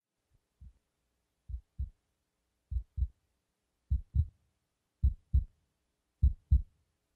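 Heartbeat sound effect: low double thumps, lub-dub, about once a second, growing steadily louder.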